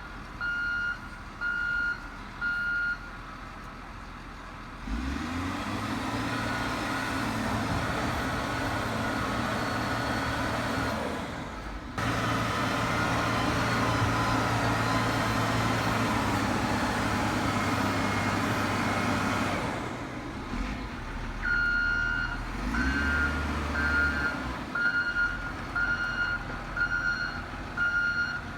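Snowplow's reversing alarm beeping steadily, a little more than once a second. After a few seconds the plow's engine runs hard under load for about fifteen seconds, then the beeping starts again as it backs up.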